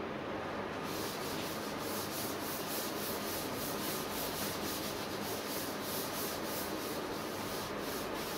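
A duster rubbing chalk off a chalkboard in quick back-and-forth strokes, several a second, starting about a second in.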